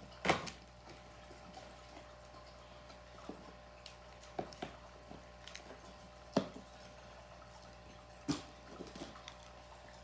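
Scattered sharp clicks and taps from handling a homemade cardboard vending machine, with four louder knocks roughly two seconds apart.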